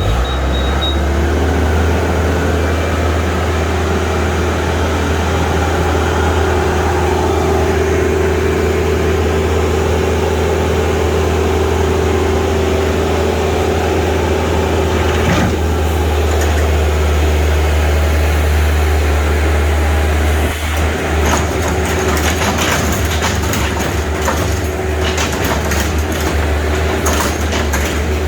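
Heavy equipment engine running steadily with a deep hum. From about two-thirds of the way in, a clattering rattle joins it.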